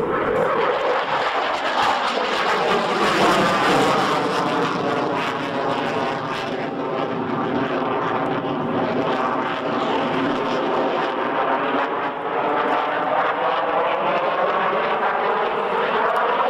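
Jet noise from a Saab JAS-39 Gripen's single Volvo RM12 turbofan as the fighter flies its display. The noise is loud and steady, with a slowly sweeping, phasing quality as the jet moves across the sky.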